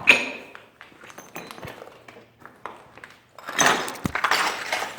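A sharp metallic clink that rings briefly, then scattered small clicks, and about three and a half seconds in a louder scraping clatter of loose metal and debris.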